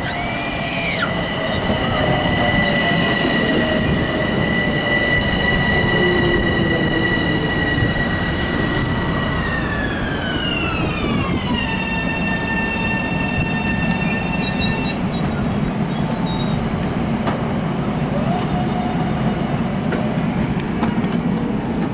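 A Long Island Rail Road train runs past with a steady rumble and a high electric whine. The whine drops in pitch about ten seconds in and fades out a few seconds later.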